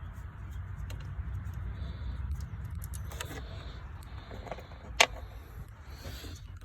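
Small metallic clinks of a hand tool and a water pump bolt being worked and handled, with one sharp click about five seconds in, over a low rumble of handling noise.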